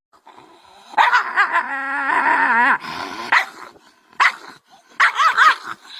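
A dog growling and barking at its own reflection in a mirror: one long, wavering snarl, then a few short barks and growls near the end.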